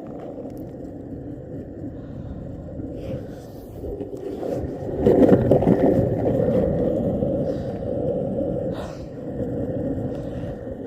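Skateboard wheels rolling over pavement: a steady rumble that grows louder about five seconds in.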